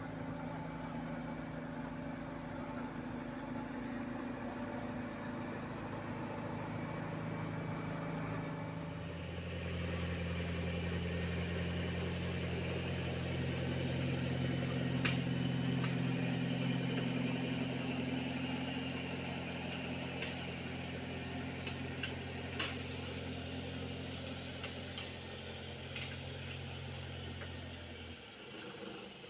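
Heavy diesel engines of road-paving machinery running steadily. About nine seconds in, a nearer engine's deeper, steady note comes in, and it cuts off near the end, with a few sharp clicks along the way.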